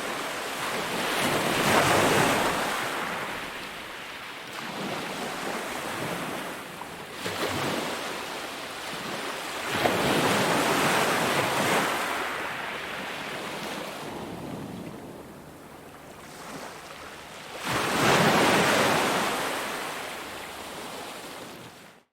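Ocean waves breaking on a beach: three big surges of surf, about eight seconds apart, each washing in and fading to a softer rush between.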